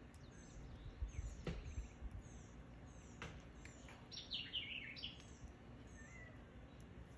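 Birds calling: repeated short high chirps, with a quick run of falling notes about four and a half seconds in. Two faint knocks come about one and a half and three seconds in.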